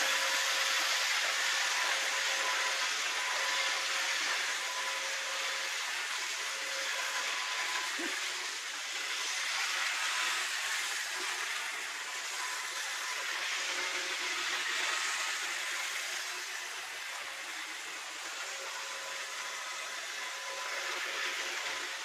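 iRobot Roomba 605 robot vacuum running over a hard floor, sweeping up scattered cereal. Its motor and brushes make a steady whir with a faint steady whine in it, swelling and fading as the robot moves about.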